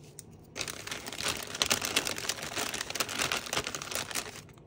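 Packaging crinkling and rustling as it is handled, a dense run of fine crackles that starts about half a second in and stops just before the end.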